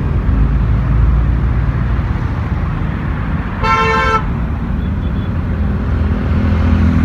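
Passing road traffic: car engines and tyres making a steady low rumble, with a single short vehicle horn toot lasting about half a second midway. A motorcycle engine passes near the end.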